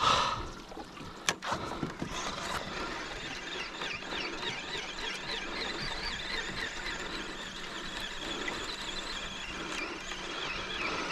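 Spinning reel being cranked to work a jig, its gears giving a fast, repeating squeak with each turn of the handle. A short knock sounds at the start and a sharp click about a second in.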